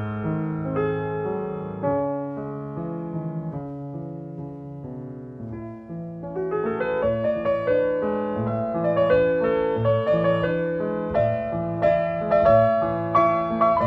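Solo piano music. A slow, quiet passage of held notes grows louder and busier, with quicker notes, from about six seconds in.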